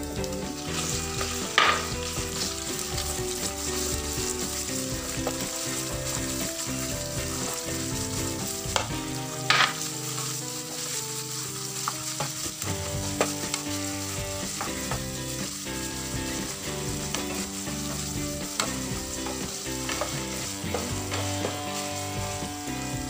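Chopped food sizzling in hot oil in a nonstick frying pan while it is stirred with a plastic spatula, with two sharp knocks: one about one and a half seconds in, one near the middle.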